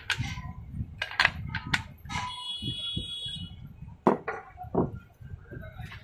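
Metal knocks and clinks from a stainless steel mixer grinder jar and tools being handled; one strike about two seconds in rings on with a high metallic tone for about a second.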